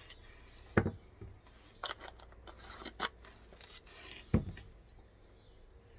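Objects being handled and set down on a table: two sharp knocks, about a second in and again after four seconds, with lighter clicks and rubbing between.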